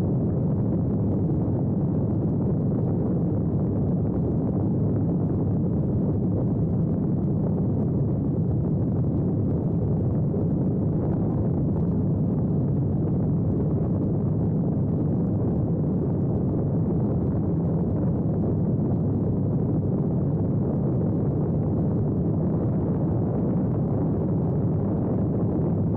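Calidus autogyro in flight: a steady, heavy low rumble of wind buffeting the outside-mounted microphone, mixed with the aircraft's engine and rotor noise.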